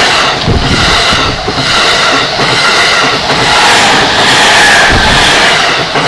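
JR East E217-series electric commuter train running past close by: a loud, steady rush of wheel and rail noise, with a low thump every second or so as the bogies go over.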